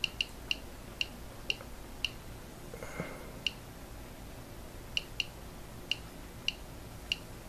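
About a dozen short, sharp clicks at irregular intervals from the Spooky2 signal generator's control knob and keys as its waveform is stepped through the arbitrary-wave settings.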